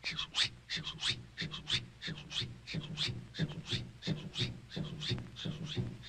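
Rapid, repeated short sniffs from a cartoon animal, about three to four a second.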